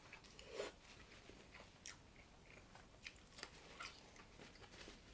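Faint chewing, with a scatter of small, sharp crunchy clicks as a person eats food close to the microphone.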